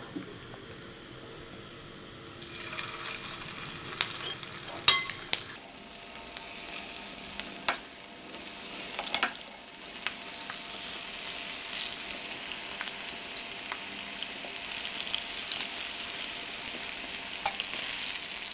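Marinated, cornflour-coated chicken pieces deep-frying in hot rice bran oil. The sizzle starts about two seconds in and grows louder as more pieces are dropped in. A few sharp spoon clinks are heard.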